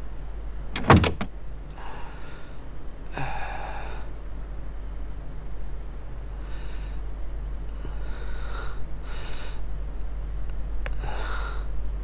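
A door shuts with a sharp knock about a second in, then a man breathes heavily, with about six separate heavy breaths and sighs.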